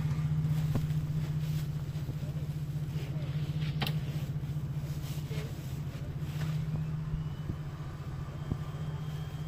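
Jeep SUV's engine running steadily at idle while the vehicle sits stuck in a mud hole, with a faint click or two.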